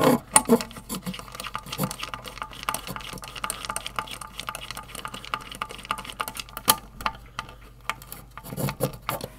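Small metal screws being driven in to fasten an aluminium heatsink back onto an induction cooktop's circuit board: a dense run of light clicks and rattles, with a few sharper knocks of the board being handled.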